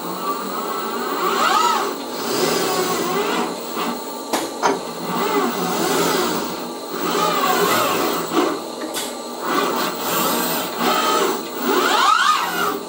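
Six-axis industrial robot arm moving, its joint servo drives whining in a pitch that repeatedly rises and falls, over a steady mechanical hum. Two sharp clicks come a little over four seconds in.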